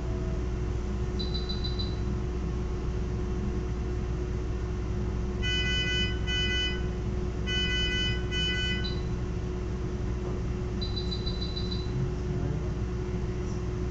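Electronic beeping from a veterinary anesthesia patient monitor over a steady equipment hum. Short runs of rapid high beeps come about a second in and again near the end. Around the middle, two pairs of louder multi-tone alarm beeps sound.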